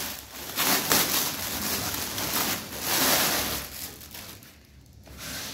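Rustling and crinkling as a bag is handled and pulled out, in many small crackles that die down about four seconds in.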